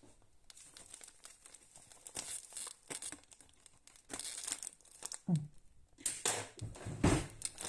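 Thin plastic supermarket carrier bag crinkling and rustling in several short bursts as its tied knot is worked at and pulled open.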